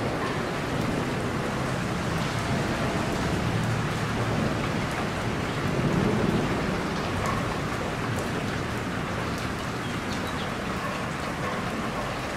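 Steady, dense rainfall with a low rumble of thunder swelling about halfway through.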